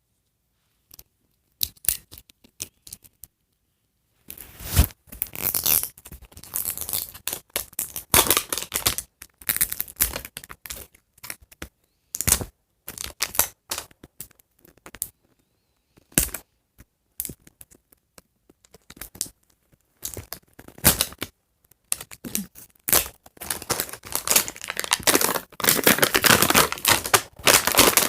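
Plastic wrapping of a toy package being torn and peeled open: irregular crinkling, rustling and short ripping sounds with pauses, busiest near the end.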